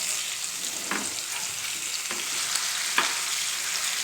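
Marinated Indian mackerel pieces frying in hot oil in a flat pan, a steady sizzle. A few sharp clicks come about a second apart as the pieces are turned with a turner against the pan.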